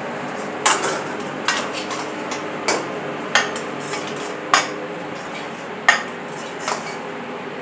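Steel ladle clanking and scraping against a wok as chicken pakoda is tossed in it: about seven sharp metal clinks at irregular intervals over a steady background hiss.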